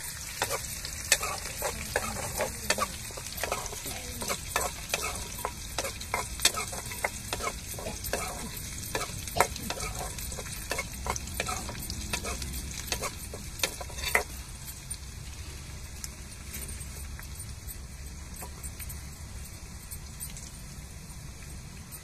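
Onions, mustard seeds and fenugreek frying in oil in a steel bowl for a tadka (tempering), sizzling steadily while a metal spoon stirs and clinks against the bowl. The clinks come thick and fast, then stop about fourteen seconds in, leaving the sizzle.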